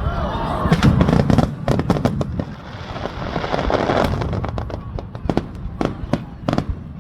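Aerial fireworks: a low rumble of shell bursts for the first second and a half, then a long run of sharp crackling pops that gradually thin out.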